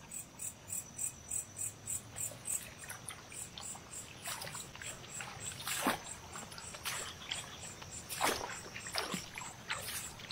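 Crickets chirping in a steady high pulsing rhythm of several chirps a second. From about four seconds in, rustling and a few sharp clicks as a small plastic container fish trap is lifted from the grass and handled.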